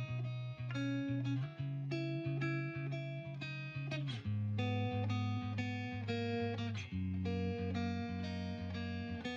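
Background music: plucked guitar notes in a steady rhythm.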